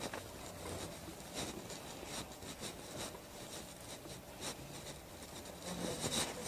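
Faint rustling and rubbing of fabric as hands press and move over a shirt at the shoulder, with a few soft scrapes spread through over quiet room tone.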